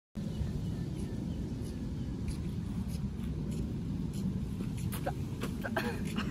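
Outdoor park ambience: a steady low rumble, with faint, short high chirps repeating about every half second.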